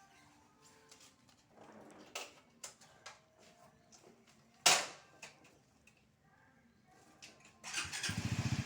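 Faint knocks and handling noises, with one sharp knock or click a little under five seconds in, then a short rough buzzing rasp in the last second.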